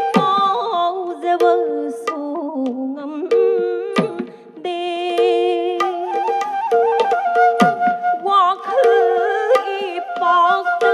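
Manipuri Ras dance music: singing with flute and hand-drum accompaniment, the drum striking sharp strokes through a held, wavering melody.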